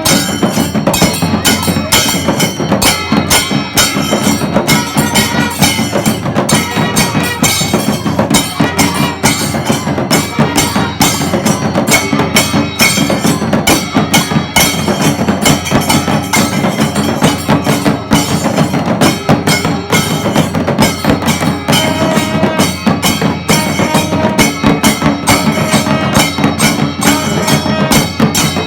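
Kailaya vathiyam ensemble playing: drums and metal hand cymbals beaten in a fast, dense, steady rhythm, with a few faint held tones woven through.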